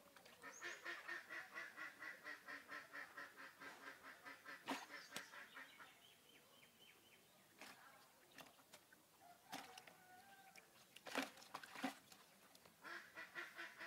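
Faint animal calls: a rapid, even run of repeated quack-like notes lasting about five seconds, returning near the end, with a few sharp clicks in between.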